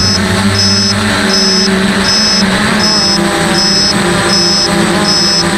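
Quadcopter brushless motors and propellers humming steadily in flight, heard close up from a camera on the frame, the hum shifting slightly in pitch. A short high beep repeats evenly about every three-quarters of a second over it.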